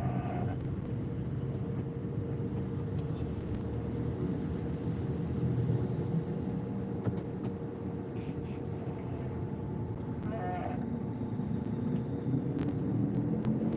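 Road traffic crawling in a jam: a steady low engine rumble with a constant hum, and a brief pitched tone about ten seconds in.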